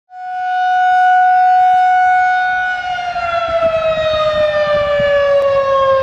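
Outdoor warning siren sounding a loud steady tone, then winding down, its pitch sliding slowly lower from about halfway through.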